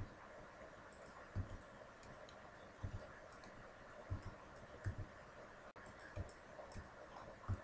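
Faint clicks of a computer mouse and keyboard being operated, a sharp click every second or so over a steady low hiss.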